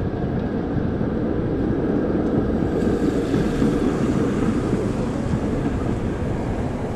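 A yellow PCC-style streetcar rolling past along the street with other traffic. It is a steady low rumble that gets a little brighter as the car goes by, about three to five seconds in.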